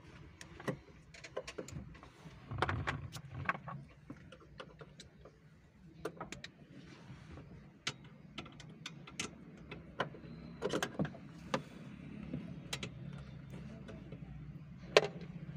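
Scattered clicks and knocks of hand tools and plastic trim parts being handled during car dashboard work, with small clusters of clicks twice, over a steady low hum.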